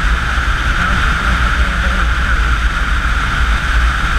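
Steady wind rush over the microphone with the low drone of a motorcycle's engine and tyres, cruising at highway speed.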